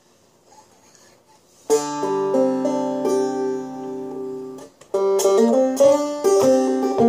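Homemade frying-pan banjo with a groundhog-hide head. After a faint start, a chord is struck and rings for about three seconds; after a brief break the banjo is played in a steady rhythmic run of plucked notes.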